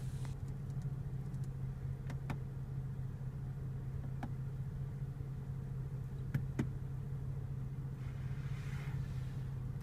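Steady low hum of a 2014 BMW 435i idling, heard from inside the cabin, with a few faint clicks from the dash controls about two, four and six seconds in.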